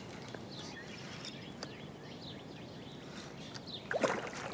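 Quiet splashing and lapping of lake water as a hooked carp is played near the bank, with a brief louder splash about four seconds in.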